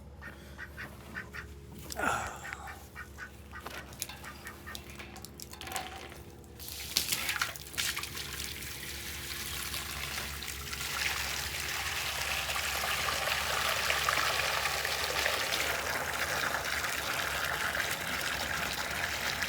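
Ducks quacking, then from about seven seconds in a hose runs water into a container, a steady rush that grows louder and holds to the end.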